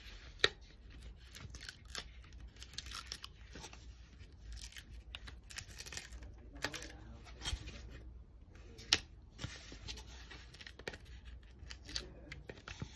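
Dried liquid-latex cap being peeled off a styrofoam mannequin head by hand: a faint, irregular crackling tear with scattered sharp clicks as the latex pulls away from the foam.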